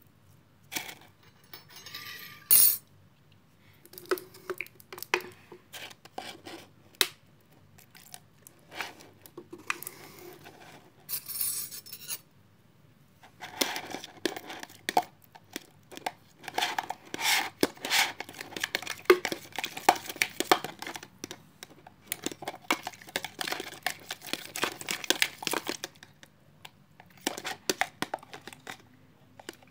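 A utensil clinking and scraping in a bowl while slime is mixed, in scattered clicks at first and then a long run of rapid clicking from about 13 to 26 seconds in.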